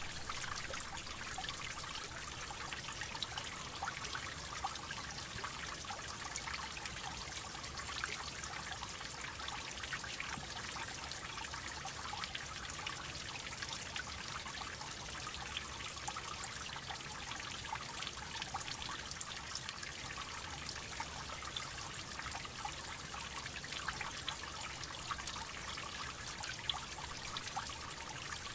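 Water dripping and trickling steadily, many small drops falling in quick succession.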